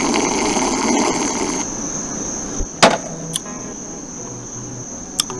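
Crickets chirping steadily in one high continuous tone. Over it, a busy scraping, rattling noise stops about a second and a half in, and a single sharp knock comes near three seconds.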